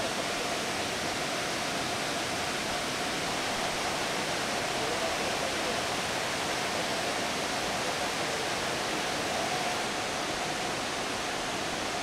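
Steady rush of Fukuroda Falls, a large tiered waterfall: water falling and crashing without letup.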